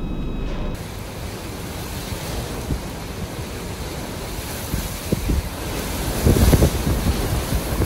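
Hurricane wind gusting hard and buffeting the microphone with a low rumble, building to its strongest gusts about six seconds in.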